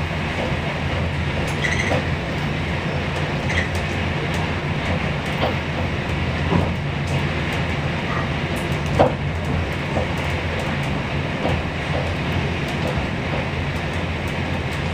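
Inside a moving passenger train carriage: the steady low rumble of the train running, with scattered short knocks and clicks from the wheels and carriage, the loudest about nine seconds in.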